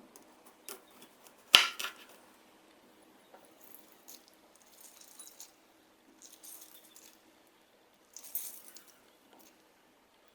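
Kitchen handling sounds while preparing a salad: a sharp clack of something set down hard about a second and a half in, then scattered light clicks and three short rustling, scraping passes.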